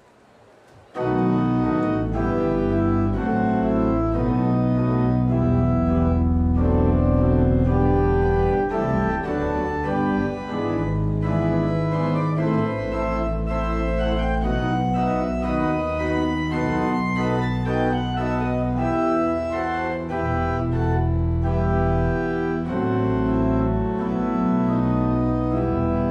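Organ playing a hymn tune in full, held chords over a deep bass, coming in about a second after a brief hush.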